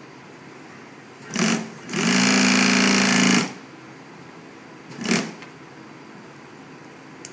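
Juki industrial single-needle sewing machine stitching in stop-start runs: a brief burst about a second and a half in, a steady run of about a second and a half, then another brief burst about five seconds in. A quieter steady hum fills the gaps between runs.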